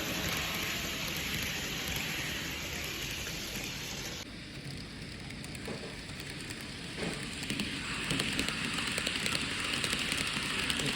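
N-gauge model train running on layout track: a steady rattling hiss of small wheels and motor. The sound changes abruptly about four seconds in, then grows louder with many quick clicks.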